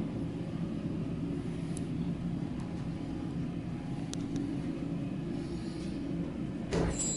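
Steady low background rumble with a few faint clicks; near the end, a brief louder clatter followed by a high ringing tone.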